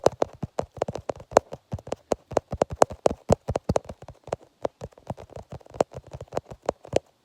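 Rapid, irregular clicking, several sharp clicks a second, stopping abruptly about seven seconds in.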